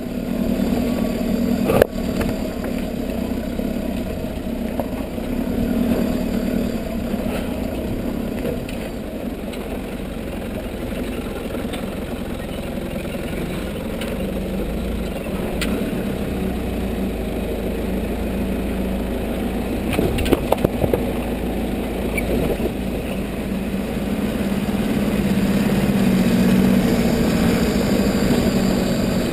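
Nissan Patrol 4x4's engine running at low, steady revs while crawling over loose rock. Occasional sharp knocks come from tyres and underbody striking stones, about two seconds in and again around twenty seconds in.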